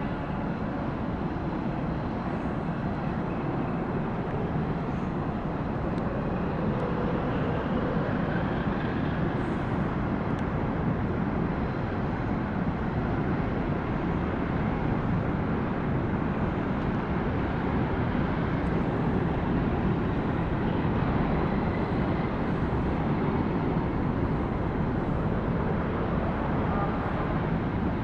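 A 228 m cargo ship's hull sliding down the launching ways into the water, making a steady, even rumble with no pauses.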